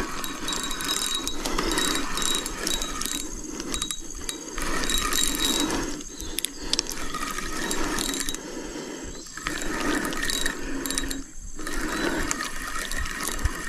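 Shimano Sienna 4000 spinning reel being cranked, its gears ratcheting in spells of a few seconds with short pauses between, as a hooked fish is reeled in.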